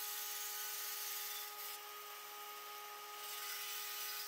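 Bandsaw running with a steady, faint whine as its blade cuts a notch into a pressure-treated board.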